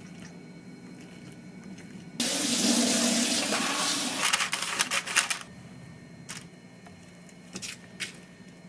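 A tap runs in a sink for about three seconds, starting suddenly, with clattering splashes just before it stops. A few light knocks follow.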